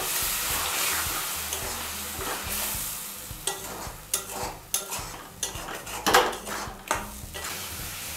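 Potatoes in spice masala sizzling in a metal kadai while a metal spatula stirs them. In the second half a quick run of spatula strokes scrapes the pan. This is the braising (kosha) stage, just after a splash of water was added.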